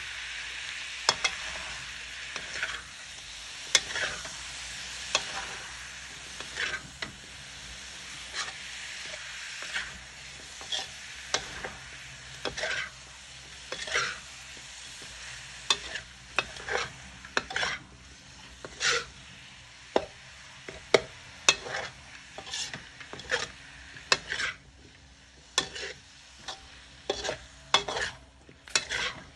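Metal spatula stir-frying straw mushrooms with pork and egg in a wok, scraping and clinking against the pan about once a second, more often near the end. Under it the food sizzles, strongly at first and then fading.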